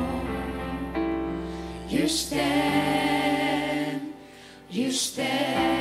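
A church worship team of several women singing a worship song together into microphones, holding long notes with vibrato over steady instrumental accompaniment. The music dips briefly to a quieter moment about four seconds in.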